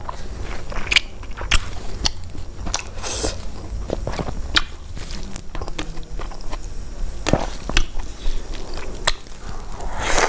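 Close-miked chewing of rice and vegetable dishes, with many sharp wet mouth clicks and smacks. There is a louder burst of mouth noise near the end as a big handful of rice goes in.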